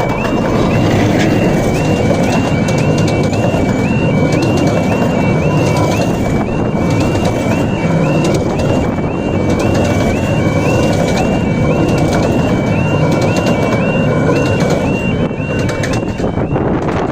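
Automatic half-barrier level crossing alarm sounding its repeating two-tone warning, about two cycles a second, over the loud running noise of a Romney, Hythe & Dymchurch Railway miniature steam train passing over the crossing. The alarm stops near the end.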